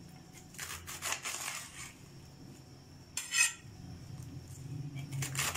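Knife shredding a head of cabbage on a tray: a quick run of crisp cutting strokes over the first two seconds, then one more cut a little past three seconds.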